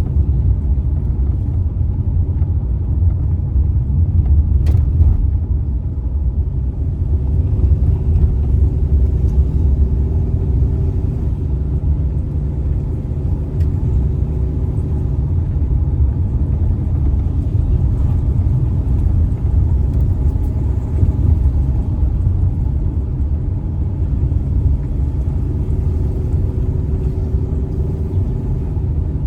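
A car driving: a steady low rumble of engine and tyres on the road, with a faint hum that comes and goes and a few light knocks.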